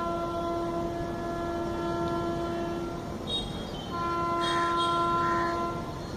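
WAP7 electric locomotive's horn sounding two long blasts, a chord of several steady tones. The first lasts about three seconds; the second starts after a second's gap and lasts about two.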